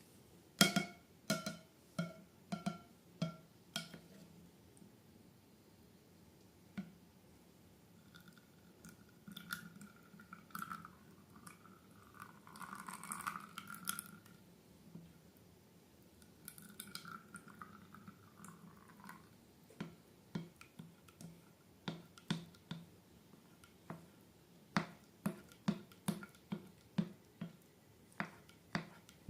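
Sticky slime being worked by hand: a run of short wet clicks, a longer squelching, pouring stretch in the middle, then more clicks at about two a second near the end.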